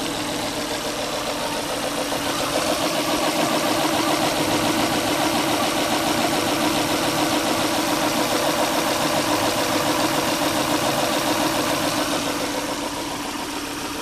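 2000 Volvo V70 XC's five-cylinder engine idling with a bad misfire, running with a regular pulsing beat. The owner suspects low compression may be behind the misfire.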